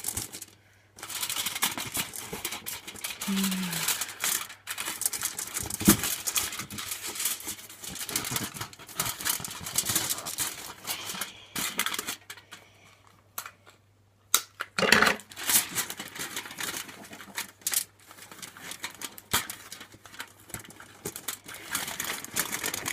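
Crinkling and rustling of craft materials being handled and wrapped, with many small irregular clicks and taps, pausing briefly a little past the middle.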